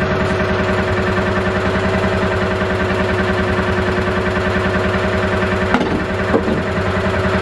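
Utility vehicle engine idling steadily with an even, fast pulse. A couple of short knocks sound about six seconds in.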